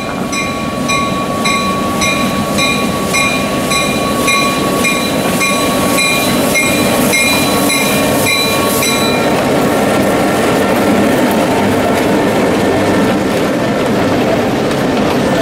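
A train rolling past with a steady rumble. A bell dings about twice a second over it and stops about nine seconds in.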